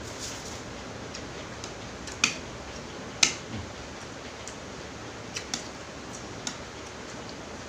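A few short, sharp clicks or taps, the two loudest about a second apart, over a steady hiss.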